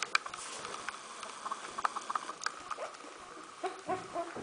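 Two-week-old smooth fox terrier puppies stirring on a blanket, with scattered light clicks and rustling, then a few short high squeaks from a puppy near the end.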